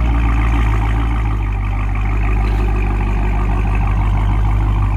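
Dodge Charger Hellcat's supercharged 6.2-litre V8 idling steadily through a muffler-delete exhaust, a deep, even rumble.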